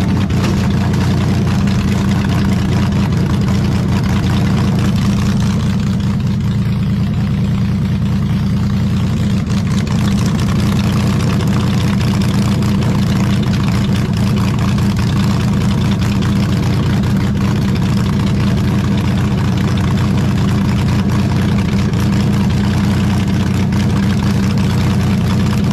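Off-road competition car's engine idling steadily with a low, even drone.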